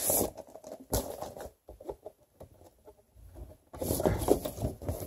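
Large stiff paper album inserts rustling and flapping as they are handled, in short irregular spells with a quiet stretch of about two seconds in the middle.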